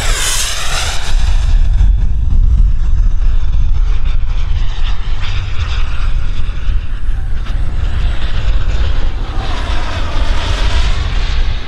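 Xicoy 132 model jet turbine in a radio-controlled F-35 making fast low passes. Its whine sweeps down in pitch as it goes by at the start, and a second pass swells and sweeps again near the end, over a steady low rumble.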